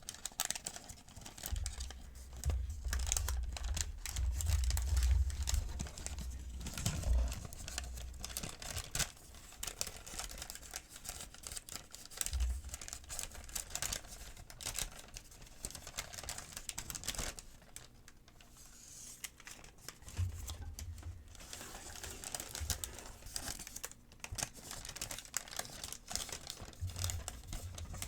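Paper medication guides being crinkled and handled: irregular crackling rustles, with occasional low bumps.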